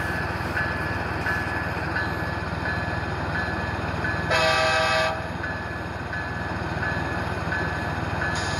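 Onboard sound of an HO-scale Athearn Genesis ES44AC model locomotive: a short horn blast of under a second about four seconds in, and another starting right at the end, over a steady low rumble and a short high tone repeating about every two-thirds of a second.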